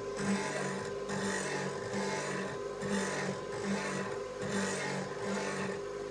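Bench grinder running with a steady hum while a cold chisel held in a sliding jig is pushed back and forth across the wheel, the grinding rasp swelling and fading about once a second as the chisel's two main bevels are ground.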